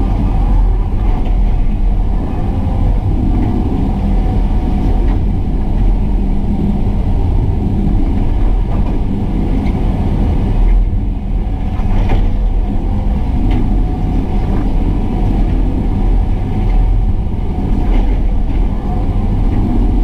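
Excavator's diesel engine running steadily as the machine works, with a few faint knocks.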